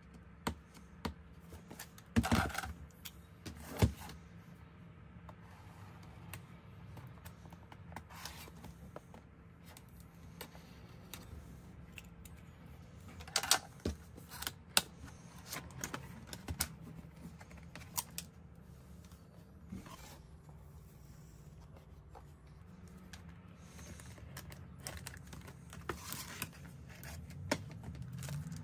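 A cardboard keyboard box being handled and opened by hand: scattered taps, slides and scrapes of cardboard. The loudest are a few sharp knocks and scrapes about two to four seconds in and again around thirteen seconds. Near the end comes a rustle of the plastic wrap around the keyboard as it is lifted out.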